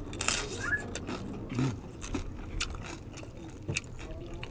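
Mouth-close crunching and chewing of crispy deep-fried pork belly skin (bagnet crackling): irregular sharp crisp crackles, the loudest just after the start.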